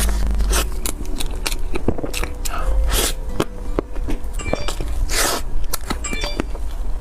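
Biting into and chewing a chocolate mousse cake, with scrapes and clicks of handling it.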